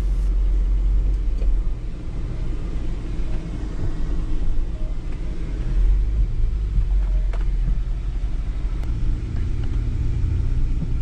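Car driving on an unpaved road, heard from inside the cabin: a steady low rumble of engine and tyres.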